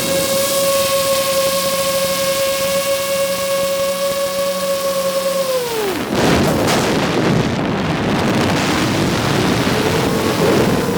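FPV drone motors and propellers whining at a steady pitch until the throttle is cut about five and a half seconds in. The pitch falls away and leaves a noisy rush of air for a few seconds, then the motors spool back up near the end.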